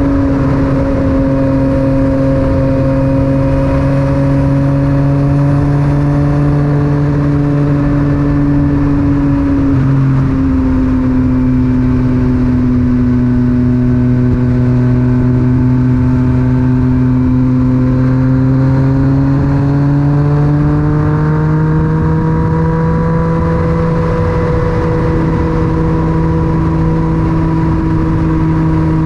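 Yamaha MT-09's three-cylinder engine through an Akrapovic titanium exhaust, running at steady cruising throttle. Its note dips slightly about a third of the way in, then rises gradually and holds.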